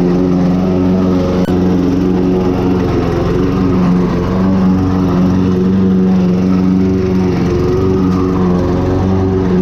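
Toro Recycler self-propelled lawn mower's petrol engine running steadily at a constant speed while mowing overgrown grass and weeds.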